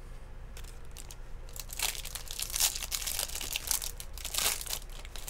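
Foil wrapper of a baseball card pack being torn open and crinkled by hand, a run of sharp rustling crackles that starts about a second and a half in and peaks twice.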